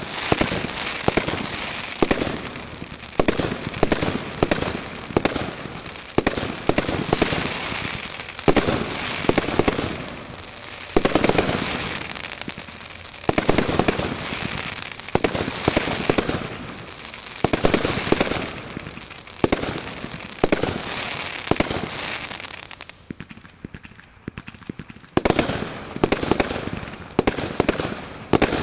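Category 3 high-noise fireworks firing shot after shot in rapid succession: launches and loud bursts with crackle. There is a short lull about 23 seconds in before the firing picks up again.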